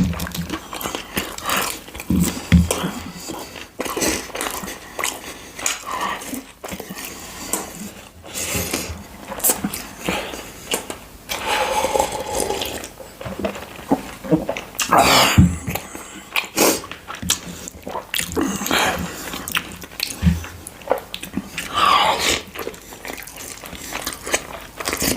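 Close-miked eating: irregular biting, chewing and mouth smacking on food such as fried chicken and noodles, with dense crunchy clicks throughout.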